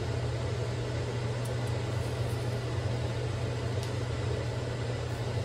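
A kitchen fan running steadily, a constant whirring hiss over a low hum, with a couple of faint ticks.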